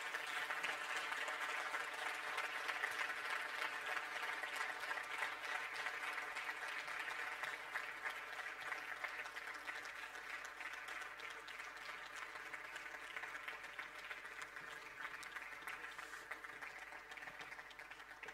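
Large audience applauding steadily, starting at once and slowly fading toward the end.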